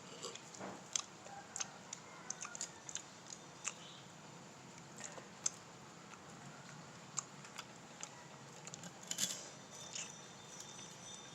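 Scattered light clicks and taps of utensils on tableware while eating, at irregular intervals, with a brief cluster of clinks about nine seconds in.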